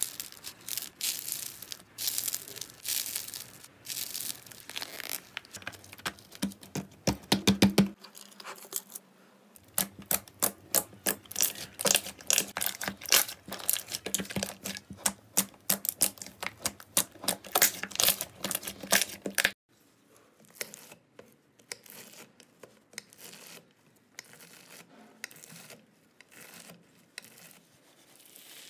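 Hands squeezing and kneading slime: a run of crackling, sticky popping and clicking. It comes first from a squishy cheese-bread-shaped slime being torn, then from blue fluffy slime pressed in a glass dish. For about the last third it turns to sparser, quieter clicks as water-bead slime is worked.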